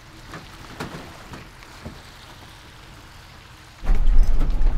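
First-generation Toyota Tundra pickup with a slide-in camper driving on a gravel forest road: at first faint, with a few soft crunches of the tyres. About four seconds in, a sudden loud, low rumble of the truck on the rough road takes over, heard from inside the cab.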